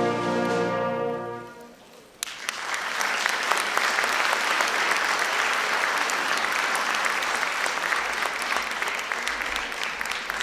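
Concert wind band holding the final chord of a piece, cut off about a second and a half in. After a short pause the audience breaks into loud applause, which starts to die down near the end.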